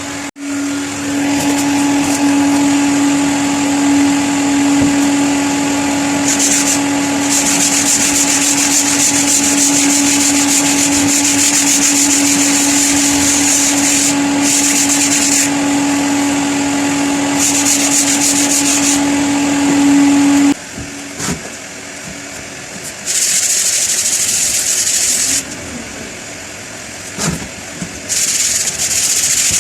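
Hot-air blower running with a steady motor hum, drying a fresh ceiling repair, then switching off about twenty seconds in. Stretches of high hissing come and go over it and carry on after it stops.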